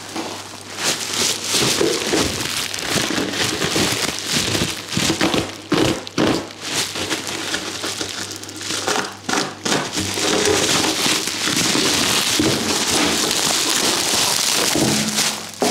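Bubble wrap and plastic sheeting crinkling and rustling as they are handled and pulled open by hand, with many small crackles.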